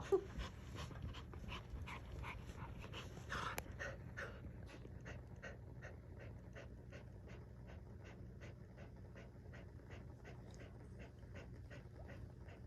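Dog panting hard, about three breaths a second, heavier in the first few seconds and then settling into a steady rhythm, as after rough play.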